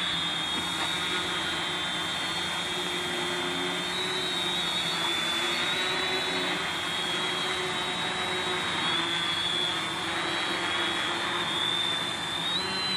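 A 450-size quadcopter's brushless motors (750 kV, spinning 10-inch props) whining steadily as it hovers in position-hold (loiter) mode. The pitch wavers slightly as the flight controller makes its own small corrections, with a brief step up in pitch near the end.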